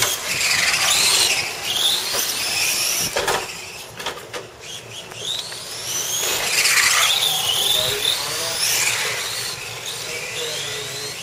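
Electric radio-controlled cars racing on concrete: their motors give a high-pitched whine that rises and falls in pitch with the throttle, several cars overlapping, with a brief knock about three seconds in.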